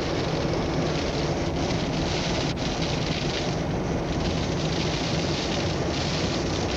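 Steady rushing noise of blizzard wind on the camcorder microphone, even and unbroken, heaviest in the low range.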